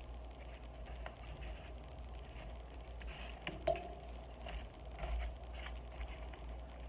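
Paper pages and card tags of a handmade junk journal rustling and tapping as they are handled and turned, with one sharper tap a little past halfway, over a low steady hum.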